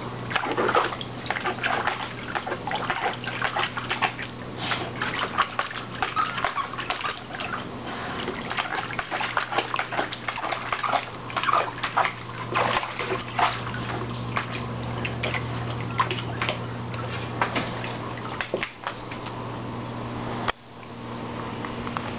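A Staffordshire bull terrier splashing and sloshing water in a plastic paddling pool with its paws and muzzle, in quick irregular splashes. A steady low hum runs underneath.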